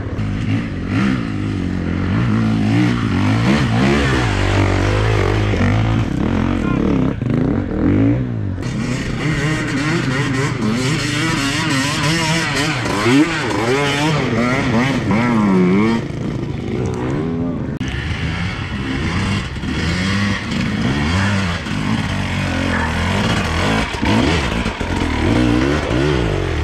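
Enduro dirt bikes revving hard under load as they climb a steep, loose dirt slope, the engine pitch rising and falling over and over.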